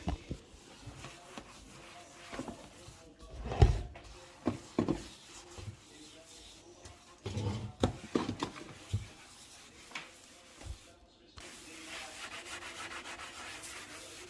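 Kitchen sink being scrubbed by hand: rubbing and scraping with irregular knocks, the loudest about four seconds in. A steady hiss sets in about eleven seconds in.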